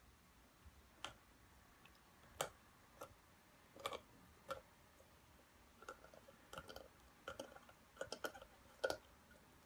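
Dog gnawing and mouthing a toy ball, its teeth making irregular sharp clicks and taps on the ball. The clicks are sparse at first and come in quicker clusters in the second half.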